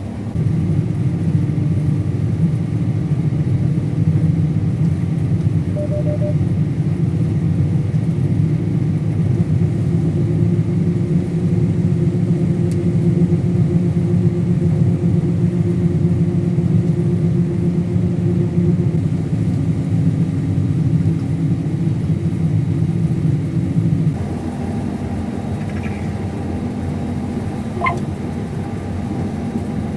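Combine harvester running while cutting soybeans: a steady, loud low drone of engine and machinery. About 24 seconds in it drops in level and settles to a different, lower hum, and a short high tone sounds a few seconds later.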